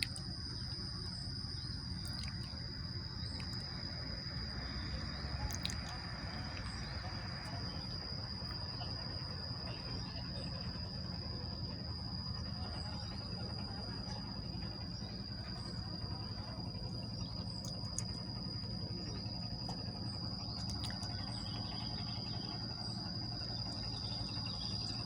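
Insects giving a steady, unbroken high-pitched trill over a low, even background rumble, with a few faint clicks.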